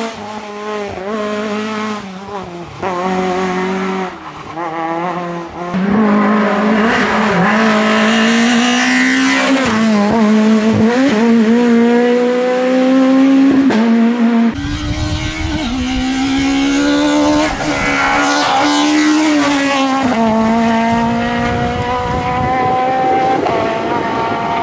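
Peugeot 106 S16 rally cars' 16-valve four-cylinder engines at high revs through several passes, each note climbing through the gears and dropping sharply at every upshift or lift. Tyre squeal comes in at times.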